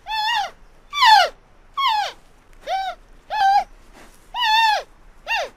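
Giant panda calling: a quick series of seven short, pitched calls, each arching up and falling away, about one every three-quarters of a second.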